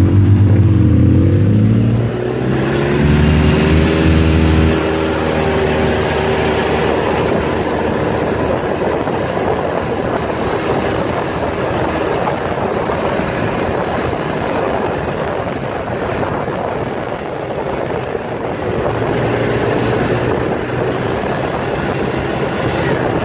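Polaris side-by-side's engine running at speed on a gravel road. Its note rises and falls for the first few seconds, then gives way to a steady, noisy rush as it cruises along.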